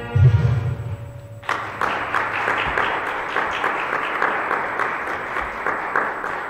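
The last low note of a piece of special music dying away, then a congregation applauding. The clapping starts about a second and a half in and thins out near the end.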